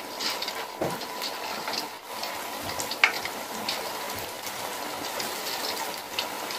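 Spoonfuls of potato-and-spinach (aloo palak) pakora batter deep-frying in hot oil in a wok: a steady sizzle with scattered crackles and pops.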